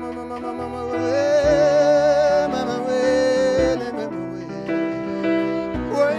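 Live band music: long held notes with vibrato over a full pitched accompaniment, the held notes coming in about a second in and again near the end.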